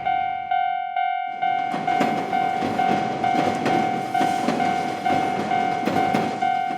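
Japanese railroad crossing warning bell ringing its steady "kan-kan" about twice a second, while a train passes with its wheels clattering over the rail joints.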